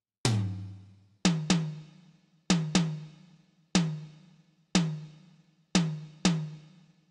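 A drum struck in a slow, uneven beat: nine single hits, roughly one a second, some in quick pairs a quarter second apart. Each hit rings out and dies away before the next, and the first is deeper-toned than the rest.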